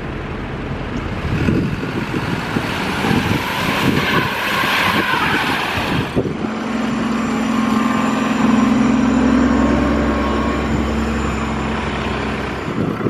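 Road traffic: a vehicle passing with a rushing noise, then from about six seconds in the steady low hum of a large vehicle's engine running close by.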